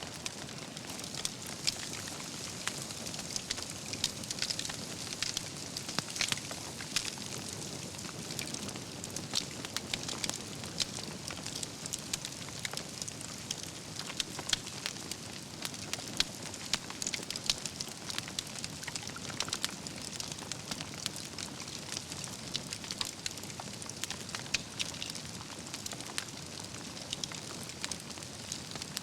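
Wood fire burning steadily with a constant hiss and frequent sharp crackles and pops from the logs and embers.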